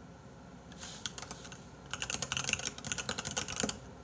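Typing on a computer keyboard: a few keystrokes about a second in, then a fast run of keystrokes lasting nearly two seconds that stops just before the end.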